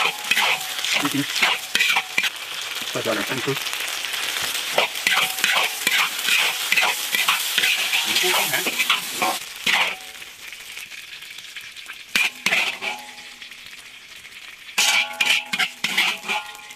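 Stir-fry in a wok: hot oil sizzling steadily while a metal spatula scrapes and clanks against the wok, tossing chicken cartilage and dried chillies. About ten seconds in the sizzling drops away, leaving only a few knocks and clinks.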